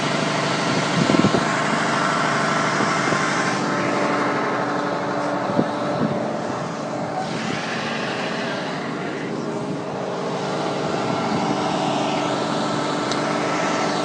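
Fire truck engine running steadily, a constant drone with a brief knock about a second in.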